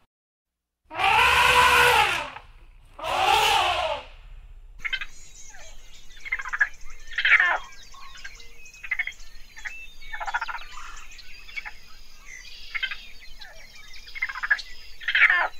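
Two loud, harsh bleats, each about a second long. A cut about five seconds in brings a chorus of small birds chirping and twittering in quick, scattered notes.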